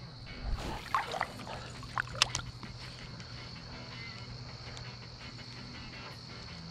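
River water splashing and dribbling a few times in the first couple of seconds, then quiet flowing-water ambience under a faint steady high-pitched drone.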